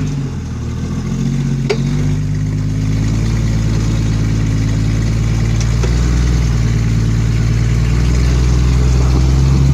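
Off-road vehicle's engine running at low revs, shifting pitch briefly at first, then holding steady and slowly getting louder. A single sharp click comes just under two seconds in.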